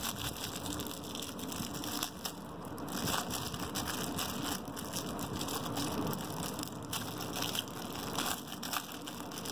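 Thin clear plastic packaging bag crinkling and crackling as fingers pull and tear at it to open it, an uneven run of small crackles throughout.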